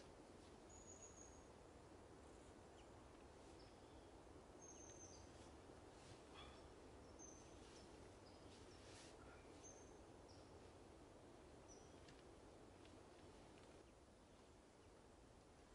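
Quiet woodland ambience: a faint steady hiss with scattered short, high bird chirps.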